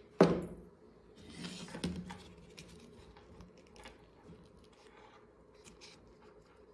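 Hands handling small craft pieces: a sharp knock about a quarter second in, a rustle about a second later, then faint small clicks and taps as a sew-on glass rhinestone is set onto a paper-flower hair-clip decoration.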